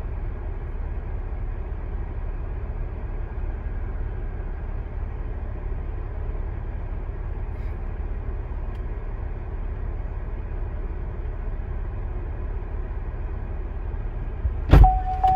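Steady low rumble and hiss inside a parked car's cabin. Near the end, one sharp loud clack as a car door is unlatched and opened.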